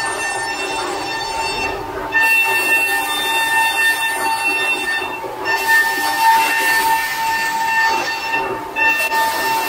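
CNC milling spindle of a 5-axis machining center cutting an aluminum plate at high speed: a steady high-pitched whine over a hiss of cutting. The hiss drops away briefly three times, about two and five seconds in and again near the end, while the whine carries on.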